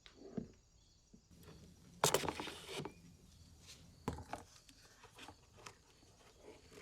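Scattered small knocks and clicks of handling, with a louder scraping burst about two seconds in and a sharper knock about four seconds in.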